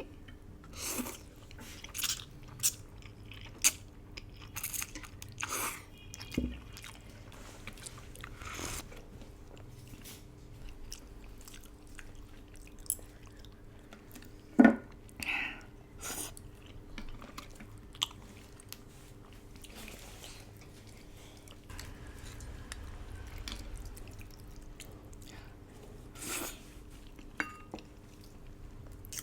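A person eating braised duck noodle soup close to the microphone: chewing and biting, with scattered short clicks and smacks.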